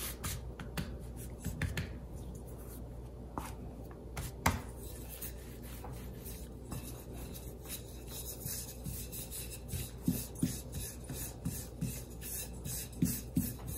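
Thin wooden rolling pin rolling out soft dough on a silicone baking mat: steady rubbing with many light irregular clicks and taps, and one sharper knock about four and a half seconds in.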